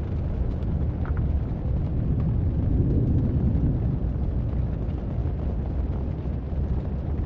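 Volcanic lava sound effect: a steady deep rumble of flowing, boiling lava with a fainter hiss above it.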